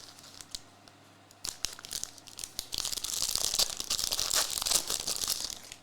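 Foil trading-card pack wrapper being torn open and crinkled by hand: a few light clicks, then a dense stretch of crackling from about halfway through that stops just before the end.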